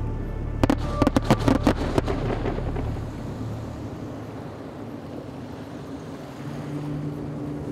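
Fireworks bursting: a rapid string of about ten sharp bangs and crackles over a little more than a second, near the start. Under them a low background music drone fades away about three seconds in, leaving a faint hiss.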